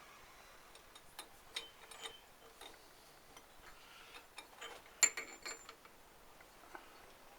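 Scattered light clicks and clinks of metal parts and hand tools being handled as a bearing goes onto a Citroën 2CV driveshaft output hub. The sharpest clink comes about five seconds in, with a brief high metallic ring.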